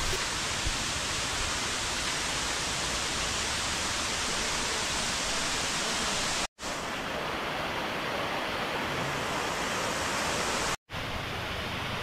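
Waterfall rushing steadily, an even hiss of falling water. It breaks off for an instant twice, about six and a half and eleven seconds in, and sounds duller after the first break.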